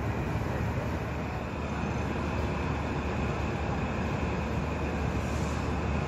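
Steady low rumble and rushing noise aboard a coast guard patrol ship running at speed: engine, wind and sea noise.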